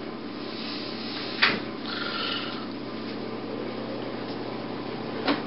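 Steady low hum of room tone, with a sharp knock about a second and a half in and another short knock near the end.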